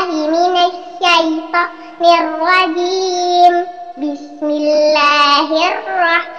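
A young girl reciting the Quran in melodic murottal chant, her voice holding and ornamenting long notes, in a few phrases with short breaths between.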